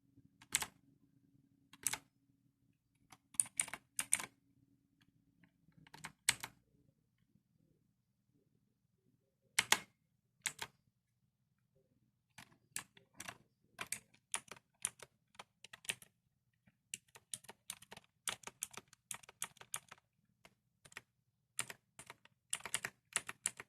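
Inter-Tech Nitrox NK-2000ME mechanical keyboard with clicky blue switches: a few separate key presses at first, then steady typing from about halfway through, each keystroke a sharp click.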